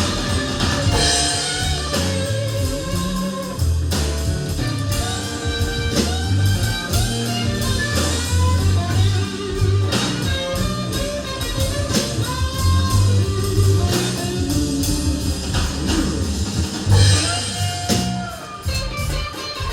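Live slow blues-rock band music: electric guitar playing a lead with bent notes over bass guitar and a drum kit, between sung verses.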